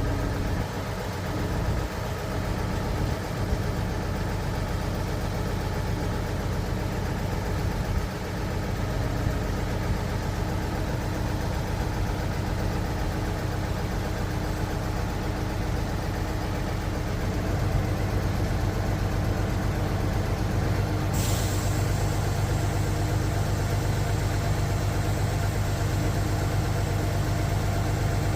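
Concrete pump truck's engine idling steadily, running a little louder for the last third. About three-quarters of the way through, a sharp hiss of air starts suddenly and keeps going.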